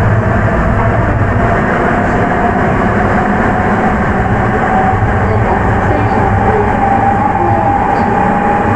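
Interior running sound of a Sapporo Municipal Subway 9000-series rubber-tyred train with Hitachi IGBT VVVF drive under way in the tunnel: a steady heavy rumble with a whine that rises slowly in pitch as the train picks up speed.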